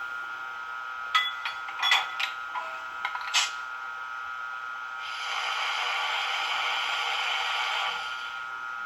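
Piko Vectron model locomotive with an ESU sound decoder: a steady electric whine, a handful of sharp clicks between about one and three and a half seconds in, then a hiss that swells about five seconds in and fades near the end.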